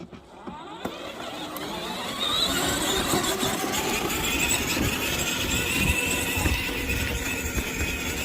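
The electric drive motors and gearboxes of a 24-volt kids' ride-on car whine as it speeds up. The whine rises in pitch over the first couple of seconds, then holds steady at full power, over the rough rumble of its wheels on the ground.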